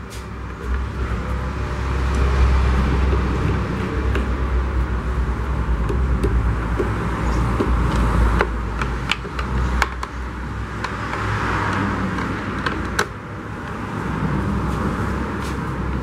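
Screwdriver turning screws out of a blender's plastic base: scattered clicks and scrapes of the tool in the screw heads, over a steady low rumble.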